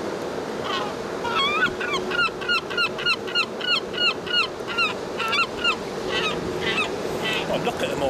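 Gulls calling: a fast, even run of repeated yelping calls, about four a second, from a little over a second in until nearly six seconds in. Scattered calls follow, over steady background noise.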